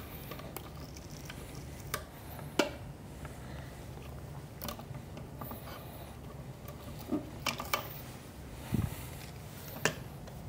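Screwdriver prying rubber feet out of the base of a DF83 coffee grinder: light scraping with scattered sharp clicks, a second or two apart.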